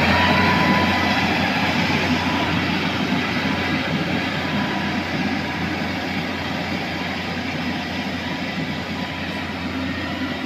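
Mitsubishi motor grader's diesel engine running steadily with a rattly clatter as the grader drives away over a dirt road, its sound slowly fading.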